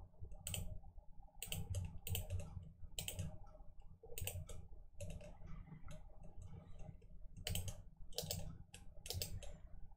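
Computer mouse buttons clicking quietly, in irregular single clicks and quick pairs.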